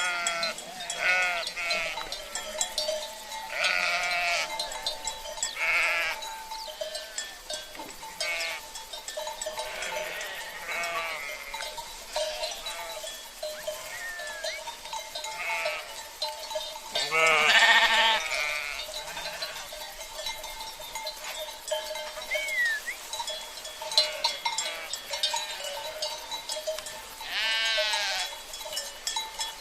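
A flock of sheep bleating over and over, many overlapping wavering calls, the loudest about 17 seconds in and again near the end, with livestock bells ringing steadily beneath them.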